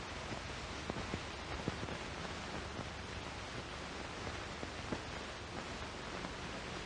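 Steady hiss with a few faint clicks and crackles: the background noise of an old optical film soundtrack.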